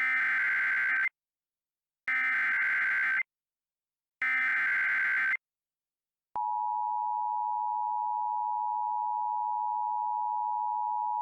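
Emergency Alert System SAME header: three one-second bursts of digital data tones a second apart, then, about six seconds in, the steady two-tone EAS attention signal begins. Together they mark the start of a new alert.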